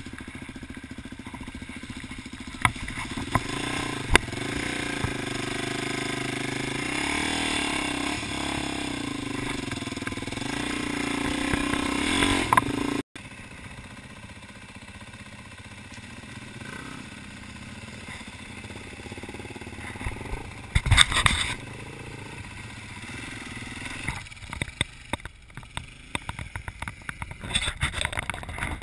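Single-cylinder dirt bike engines heard from the handlebars while riding a rough trail. The engine rises and falls with the throttle, climbing in pitch and loudness for the first dozen seconds, with knocks from the bumps. After an abrupt cut the bike is quieter, with a loud clattering burst partway through and rougher, gusty noise near the end.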